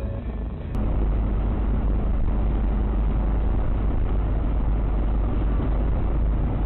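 Steady low road and engine rumble inside a car cruising at highway speed, about 116 km/h. It starts abruptly about a second in, cutting off a moment of music.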